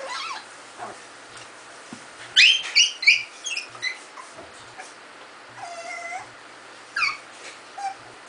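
Puppies at rough play, an Afghan hound and miniature pinschers, giving high-pitched yips and whimpers in short bursts. The loudest is a run of several quick yelps about two and a half seconds in, with a drawn-out whine around six seconds and a couple more yips near the end.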